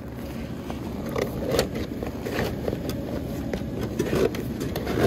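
A fabric cover over a 4Runner's front bumper rustles and scrapes with a few short clicks as it is pulled back by hand to uncover the winch. A steady low rumble runs underneath.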